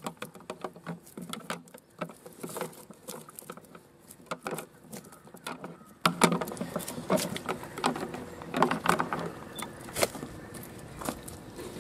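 Live prawns flicking and jumping in a shallow plastic crate of water, a rapid, irregular patter of small clicks and splashes against the plastic. It grows louder about six seconds in, as hands and net stir the catch.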